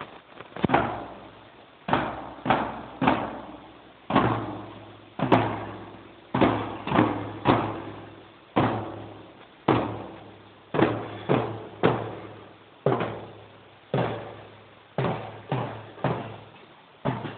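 Marching bass drums beating a repeating march rhythm: two beats about a second apart, then three quicker beats, over and over. Each strike rings out briefly.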